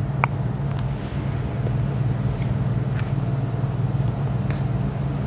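A motor running steadily, with a low hum and a rushing noise.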